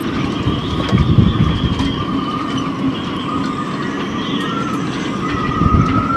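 Gale-force wind whistling through yacht rigging in a marina, a steady, slightly wavering high whistle. Underneath, gusts rumble on the microphone, strongest about a second in and again near the end.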